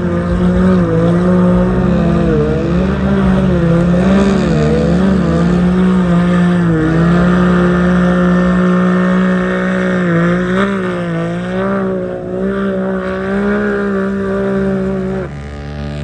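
Off-road race vehicle engine running hard nearby, its note wavering up and down as the throttle is worked, then dropping off near the end.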